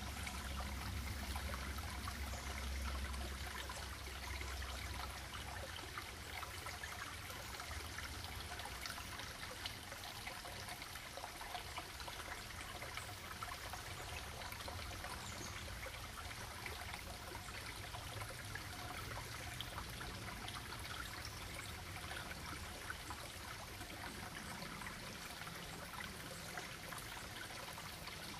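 Shallow rocky creek trickling over stones: a steady, faint running of water flecked with small splashes. A low rumble underneath fades out in the first few seconds.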